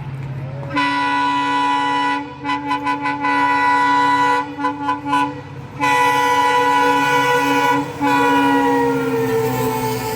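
Indian Railways locomotive air horn sounding a long blast, then a run of short toots, another long blast, more short toots and two further long blasts, its pitch sinking toward the end, over the low rumble of the running train.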